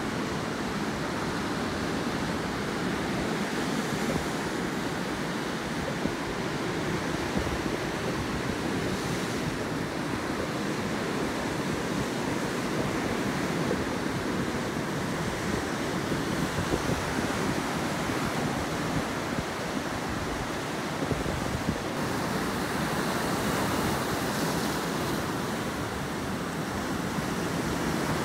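Sea surf breaking and washing over a rocky shore: a steady, continuous rush of waves.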